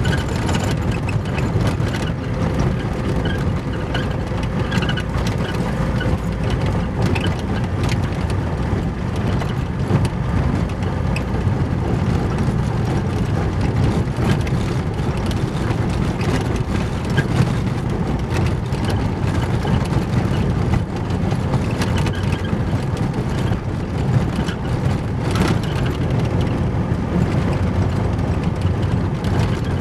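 Car driving on a loose gravel road, heard from inside the cabin: a steady rumble of tyres on gravel and engine, with occasional sharp clicks.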